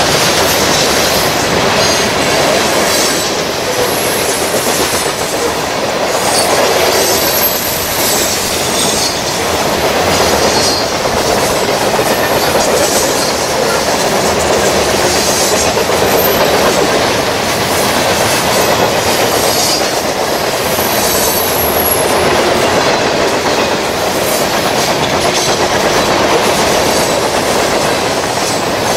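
Freight train of covered hopper cars rolling past close by: a steady rumble with the wheels clicking over the rail joints, and brief high-pitched wheel squeals a few times.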